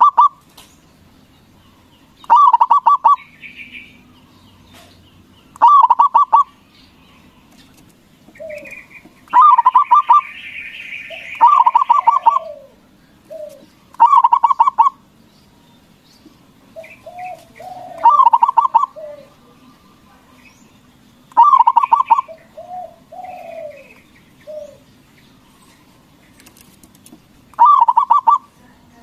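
Zebra dove (local Javanese perkutut) singing: repeated short phrases of rapid bubbling coo notes, each under a second, about every three to four seconds. Fainter chirps and low coos sound between the phrases.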